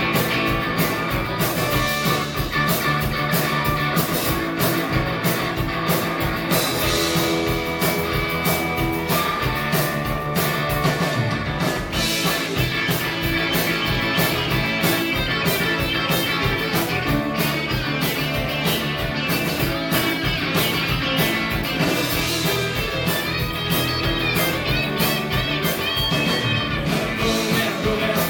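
A rock band playing live: guitars over drums keeping a steady beat, with little or no singing.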